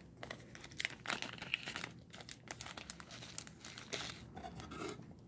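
Small clear plastic bag crinkling irregularly as hands open it to take out a crystal pendulum. The crinkling stops near the end.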